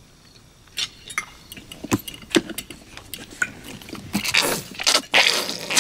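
Cutlery clinking and clicking on dinner plates, then a plastic ketchup squeeze bottle squeezed hard, spluttering sauce out in several noisy squirts near the end.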